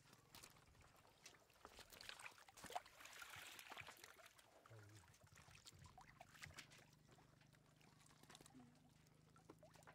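Faint splashing and trickling of shallow water stirred by hands and a bamboo basket, with scattered small knocks and a steady low hum underneath.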